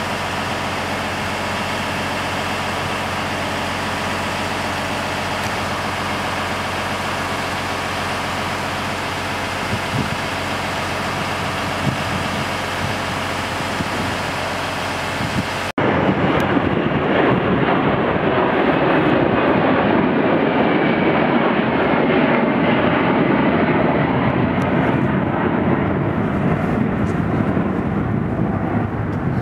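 Electric inspection train at a station platform, a steady even hum. A little past halfway, an abrupt cut to an aircraft passing overhead: a louder, duller rumble.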